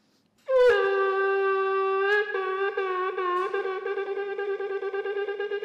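A shofar being blown. A short rising attack about half a second in leads to one long steady blast. About two seconds in it breaks into a few wavering notes, then into a rapid run of short staccato blasts.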